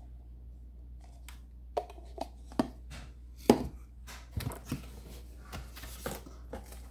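Irregular clicks and knocks of plastic cups and packaging from an epoxy resin kit being handled and set down on a table, the loudest knock about three and a half seconds in.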